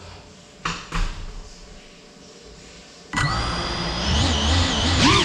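Two sharp knocks about a second in, then, a little past three seconds, the brushless motors of a CineLog35 cinewhoop FPV drone spin up with a sudden high whine in several tones. The whine holds steady, then starts to waver in pitch near the end as the throttle changes.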